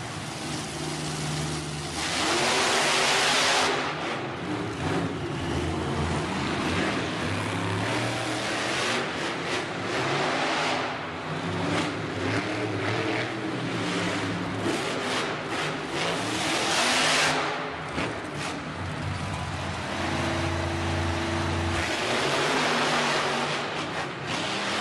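Monster truck engines revving up and down in an indoor arena as two trucks race over the jumps, with loud full-throttle rushes several times.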